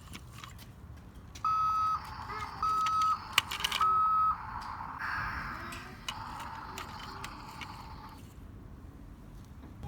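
Electronic sound effect from a battery-powered toy construction truck: three even beeps about a second apart, like a reversing alarm, then about three seconds of a buzzy, hissy noise from the toy's small speaker. Light clicks from the toys being handled.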